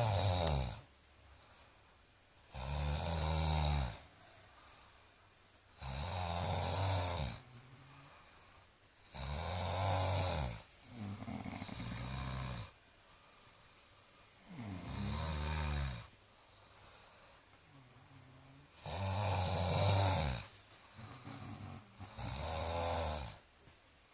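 A sleeping man snoring: one low, rattling snore about every three seconds, each lasting a second or so, with quieter breathing between them.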